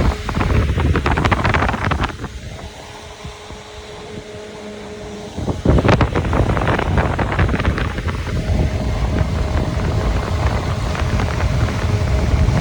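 A Walton Tornado WTF 955 electric fan runs at raised speed, its airflow buffeting the microphone as a heavy rumble. About two seconds in the rumble drops away and a steady motor hum shows. It comes back loud a little over five seconds in.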